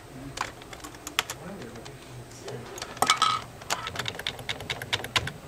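Typing on a computer keyboard: irregular keystroke clicks, coming faster in the second half.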